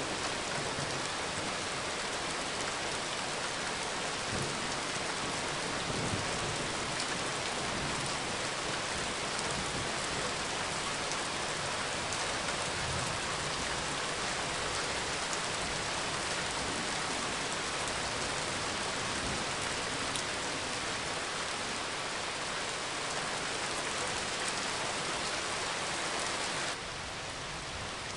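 Steady rain falling, an even hiss of rain on hard surfaces. Near the end it drops suddenly to a slightly quieter level.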